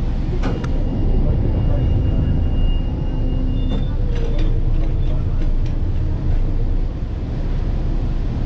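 Passenger ferry underway: a loud, steady low rumble of the engines and wind buffeting the microphone, with a few brief knocks and clicks about half a second in and again around five seconds in.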